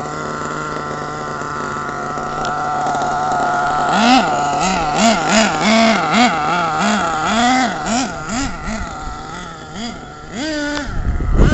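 Radio-controlled monster truck's motor running at a steady pitch, then revving up and down about twice a second as it is driven around. Wind rumbles on the microphone near the end.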